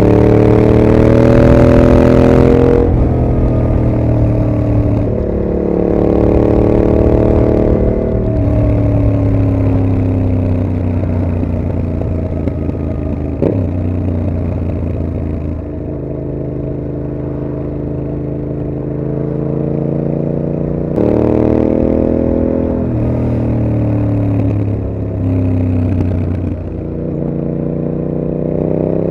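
Yamaha MT-07's 689 cc parallel-twin engine through a Mivv GP exhaust, pulling up through the revs and dropping back at each gear change several times, with a steadier, lower-revving stretch in the middle.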